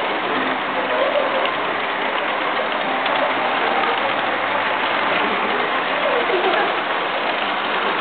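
HO-scale freight cars rolling past close by, a steady rushing clatter of metal wheels on the track, with blues music faintly underneath.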